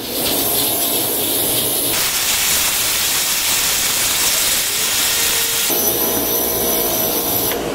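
Kärcher K3 Follow Me electric pressure washer spraying at full pressure on the hard setting, its jet hitting a motorcycle's rear wheel and exhaust. A steady loud hiss of water over the machine's whine stops abruptly near the end.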